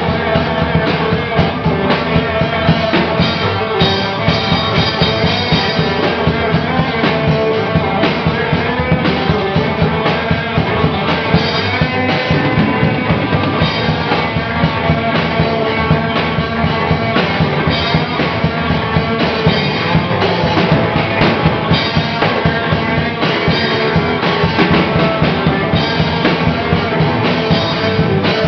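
Live rock band jamming in a punk style: a drum kit beating a busy, steady rhythm under an electric guitar and a bass guitar, all playing without a break.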